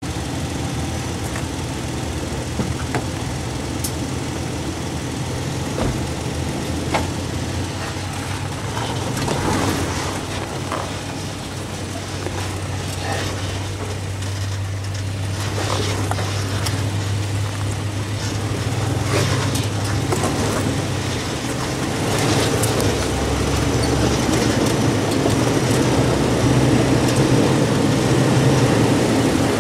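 Toyota FJ Cruiser's V6 engine running at low speed as it drives over dirt and rock, heard close up from a camera on the fender, with scattered clicks and knocks. The engine gets louder over the last few seconds.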